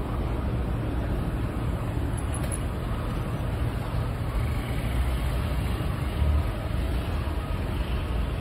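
Busy multi-lane city road traffic: a steady low rumble of cars and buses passing.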